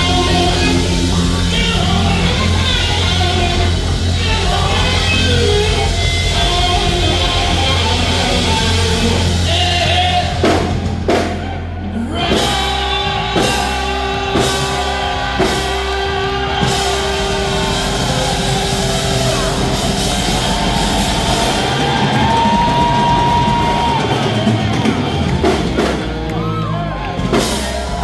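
Live rock band playing loud, with drum kit, electric guitar and vocals. About ten seconds in the band hits a run of sharp, stop-start accents, then holds long sustained notes.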